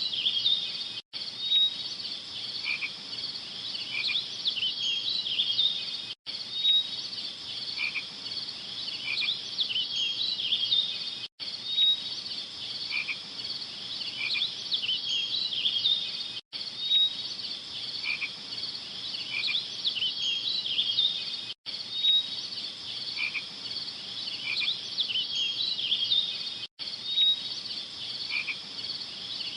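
Looped background ambience of a high, chirping animal chorus. The same few seconds repeat about every five seconds, with a brief cut to silence at each loop point.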